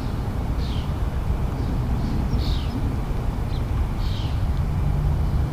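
A bird chirping several times, each call short and falling in pitch, over a steady low rumble of outdoor background noise.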